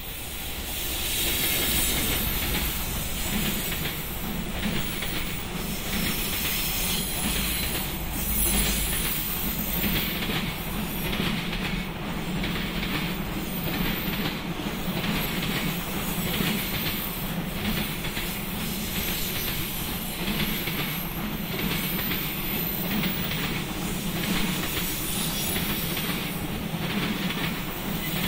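JR Freight EF210 electric locomotive passing, then its train of container flat wagons rolling by. The wheels clatter over the rail joints in a repeated clacking rhythm above a steady rumble, getting louder about a second in as the locomotive comes alongside.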